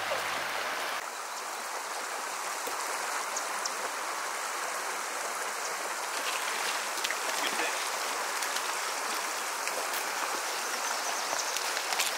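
Small mountain creek running over cobbles: a steady rushing of water.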